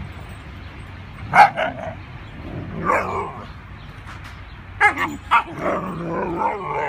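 Several Siberian huskies play-fighting, barking and yipping: a sharp bark about a second and a half in, another call around three seconds, a quick run of three near five seconds, then longer, wavering calls near the end.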